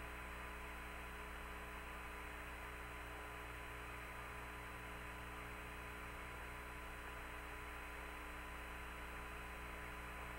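Steady hum and hiss of an open Apollo spacecraft-to-ground radio channel with no one talking, with a few constant tones running through it.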